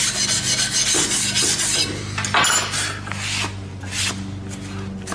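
Steel wire brush scrubbing the bevel of thick steel plate in rapid back-and-forth strokes, cleaning the joint before welding. After about two seconds the scrubbing gives way to a few separate scrapes, over a steady low hum.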